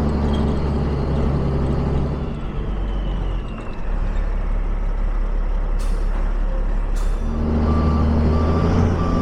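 Heavy vehicle engine running steadily. It drops back about two seconds in and comes up again about seven seconds in, with two sharp clicks just before it returns and a repeating electronic beep near the end.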